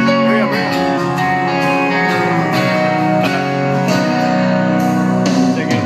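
Music with strummed guitars and a steady beat, with no singing.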